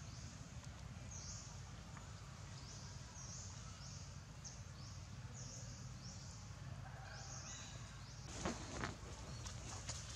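Forest ambience: a short, high, buzzy call repeated every half second or so with pauses, over a steady low rumble, with two brief knocks or rustles near the end.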